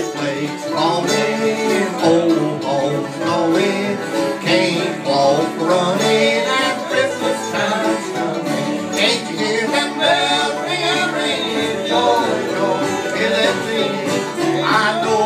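Bluegrass band playing on acoustic instruments: mandolin and acoustic guitar, with fiddle and upright bass.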